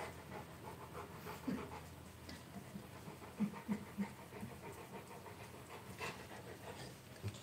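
Rottweiler panting in short, rhythmic breaths, about three a second at its clearest.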